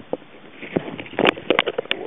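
Irregular clicks and knocks over a low water hiss, heard through an underwater camera's waterproof housing as it is towed along the fishing line; the knocks come thickest in the second second.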